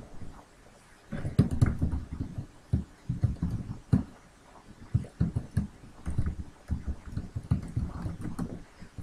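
Computer keyboard typing: irregular runs of quick keystrokes, dull thuds with light clicks on top, starting about a second in.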